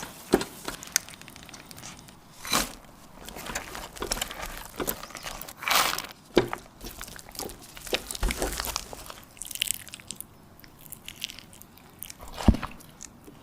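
Kitchen handling sounds from cake preparation: scattered taps, knocks and rustles, with a sharp knock near the end.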